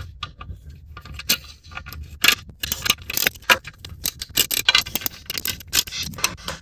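Hand ratchet with a hex-bit socket clicking in quick, uneven runs as the engine guard's bolts are loosened, with light metallic ticks and jingles. A single click comes about a second in, then the clicking grows dense.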